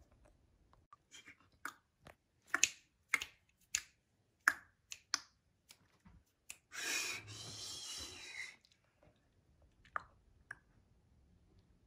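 A string of short, sharp clicks and snaps, then a hissing rustle lasting about a second and a half, then two more clicks near the end.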